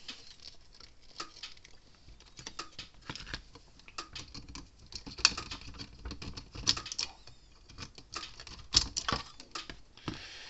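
Hands handling a fence charger's circuit board, capacitor and wires: irregular light clicks, taps and rattles, with a few sharper knocks about five, seven and nine seconds in.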